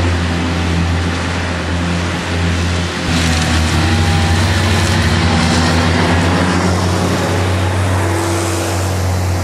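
Avant compact loader running with its 1500 lawn mower attachment: a steady engine drone over a noisy whir, getting louder about three seconds in.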